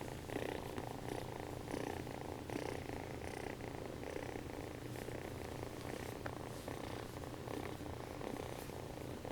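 Domestic cat purring steadily, close to the microphone, swelling in a regular rhythm about every second as it breathes in and out.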